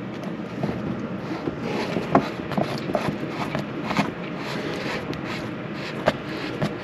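A brass pipe fitting being screwed by hand into a plastic anti-siphon valve: scattered small clicks and scrapes of handling over a steady background hum.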